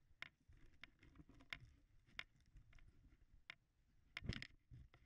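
Faint footsteps walking down a dirt trail, one short crunch about every two-thirds of a second, with a heavier step a little after four seconds in.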